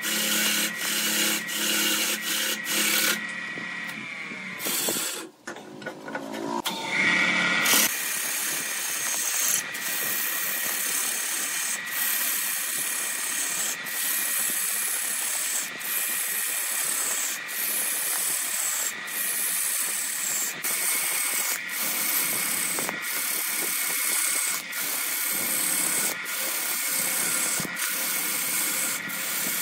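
Turning chisel cutting a large wooden blank spinning on a wood lathe: a steady scraping, shaving noise as chips fly off. It is broken by short gaps about every second and a half.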